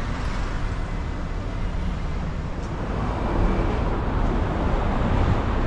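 Road traffic at a busy street junction: cars passing in a steady rumble that grows a little louder about three seconds in.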